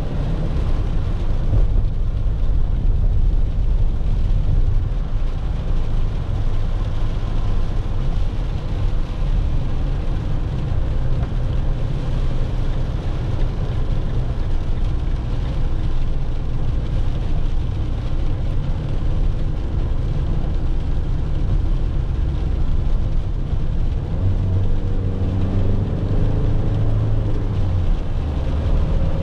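Peugeot Boxer van's 2.0 BlueHDi diesel engine running at road speed, heard from inside the cab, with a steady hiss of tyres on a wet road. Near the end the engine note rises as the van pulls harder.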